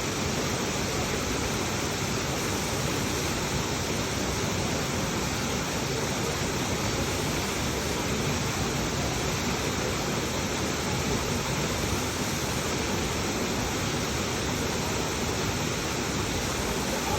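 Steady rushing of a waterfall, an even continuous noise without breaks.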